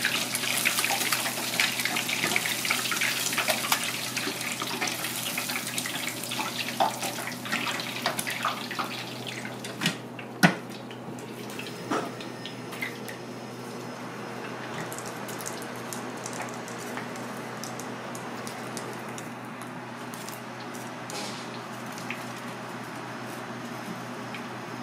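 Hot oil in a deep fryer sizzling and crackling, dense with small pops for the first ten seconds or so, then settling into a softer, even hiss. A sharp knock about ten seconds in and a lighter one about two seconds later.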